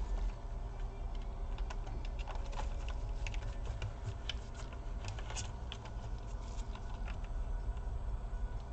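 Irregular light plastic clicks and taps from hands working on a laptop's parts and cable connectors during reassembly, over a steady low hum.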